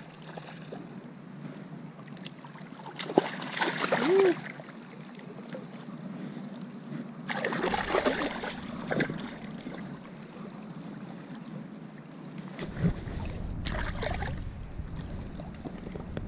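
Shallow bay water sloshing and splashing right at the microphone, with three louder spells of splashing about three, seven and thirteen seconds in.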